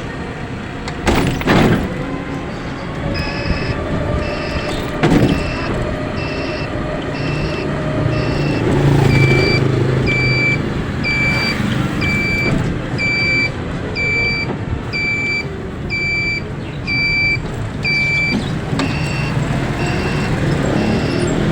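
A vehicle running on the road, with a couple of thumps in the first few seconds. From about three seconds in, an electronic beep repeats steadily a little more than once a second, like a vehicle warning or reversing beeper.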